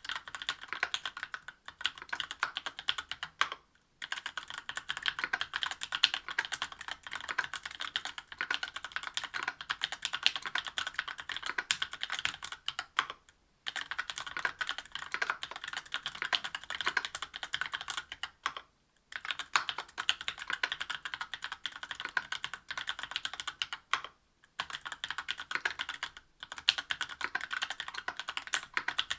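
Fast typing on a mechanical keyboard with stock, unlubricated Tecsee Oreo 63.5 g linear switches on an aluminium plate under GMK Modern Dolch Light keycaps: a rapid stream of key clacks in long runs with a few brief pauses.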